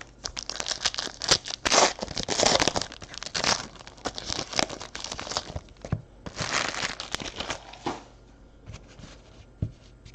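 Trading card pack wrappers being torn open and crinkled by hand, a dense run of crackling and ripping for about eight seconds, then only a few faint clicks and rustles.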